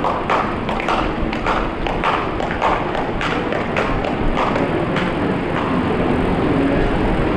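A fast, even series of thumps or taps, about three to four a second, over a steady rumbling outdoor noise. The thumps thin out after about five seconds, leaving only the rumble.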